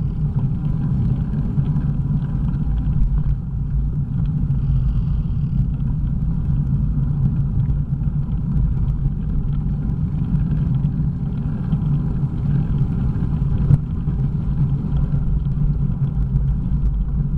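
Steady low rumble of wind buffeting a bicycle camera's microphone and tyres rolling over a wet, icy road while riding, with one sharp tick near the end.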